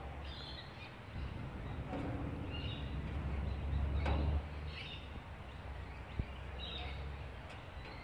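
Noisy miners giving about six short, high chirps, spaced a second or two apart, over a steady low background rumble.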